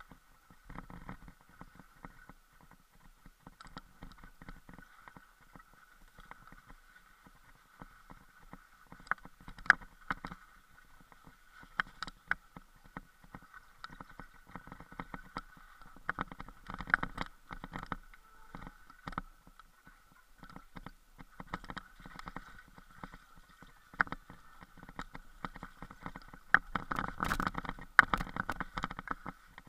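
Mountain bike rattling and knocking as it is ridden over a rough, snowy trail: irregular clicks and thumps over a steady faint whir, busiest and loudest near the end.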